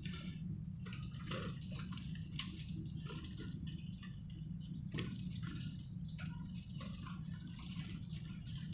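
Budgerigar chattering in a quick, uneven run of short chirps and clicks.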